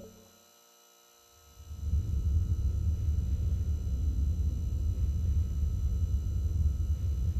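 Background music fades out, then after a moment of near silence a low, steady rumbling hum comes in and holds: an ambient drone sound bed.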